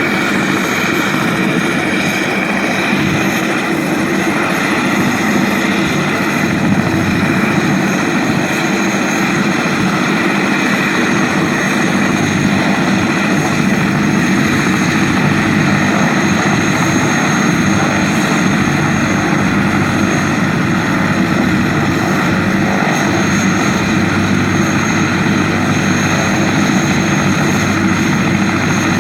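Turbine-powered sheriff's helicopter running steadily, rotor noise under a high, continuous turbine whine.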